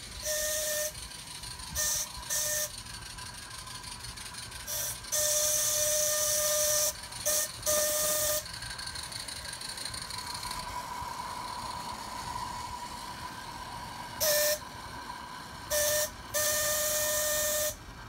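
Remote-controlled steam whistle on a garden-railway locomotive blowing a series of short and long blasts, each a pitched tone with a hiss of steam. A fainter steady hiss continues between the blasts, and there is a pause of several seconds in the middle.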